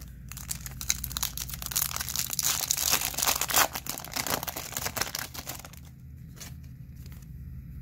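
Foil wrapper of a Topps Chrome baseball card pack being torn open and crinkled by hand, a dense crackling that dies down after about five seconds to a few light clicks.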